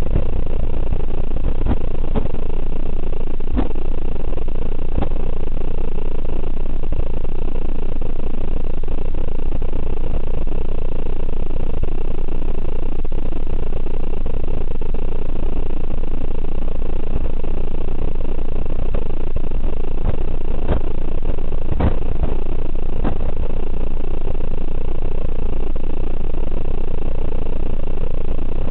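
Steady road and engine noise inside the cabin of a passenger van moving at highway speed, with a few short knocks and clicks.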